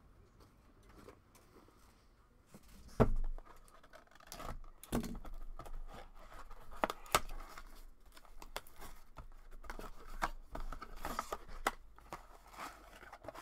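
Trading-card packaging from a Panini Mosaic blaster box being torn open and crinkled by hand, with a sharp knock about three seconds in.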